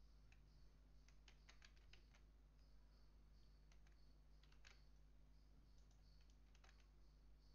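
Faint, irregular clicking of laptop keyboard keys being pressed, over a steady low electrical hum.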